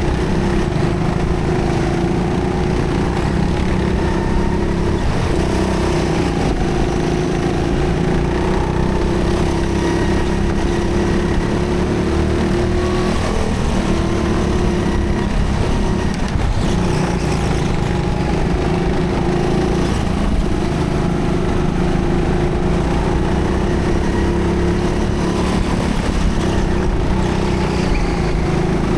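A go-kart heard from the driver's seat while racing, its motor giving a steady drone that dips slightly every few seconds as the kart slows for corners.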